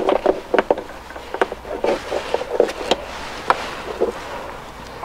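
Socket wrench on a flexible extension clicking and knocking against metal engine parts as it is worked onto an awkward engine-cover bolt: a string of irregular light clicks.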